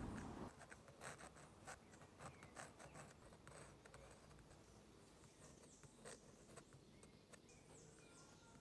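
Steel dip pen nib scratching across rough-textured paper in quick short strokes of drawing and hatching, faint, thickest in the first half and sparser later.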